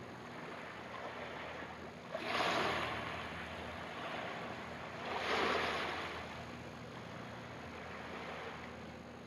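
Small waves of a calm sea washing onto a pebble shore: two swells of rushing water about three seconds apart, with a steady low hum underneath.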